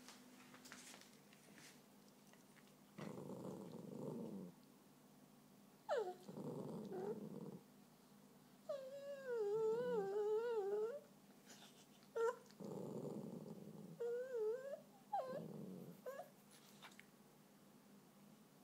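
Small dogs, one whining in high, wavering cries, interspersed with about four low growls of a second or so each. The crying is a dog begging for another dog's bone.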